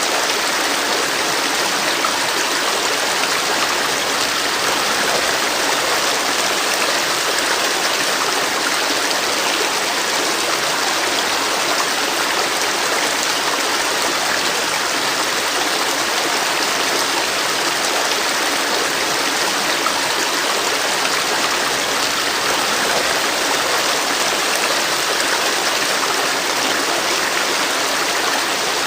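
Flowing river water rushing steadily, an even wash of water noise without a break.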